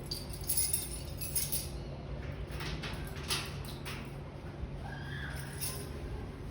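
Metal objects rattling and clinking in short, scattered bursts over a steady low hum.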